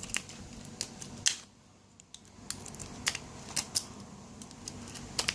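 Lock pick raking the pins of a 40mm Duramax 4-pin laminated padlock, giving irregular small metallic clicks and scrapes, with a short lull about a second and a half in.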